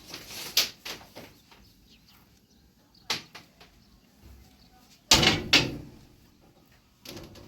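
A few separate sharp knocks and bangs with quiet between them, the loudest a double bang about five seconds in.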